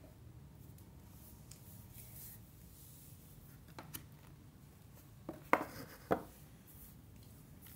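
Cardboard jigsaw puzzle pieces being sorted and handled by hand, a soft rustle and scrape with a few light ticks, then two sharp clicks about half a second apart near the middle.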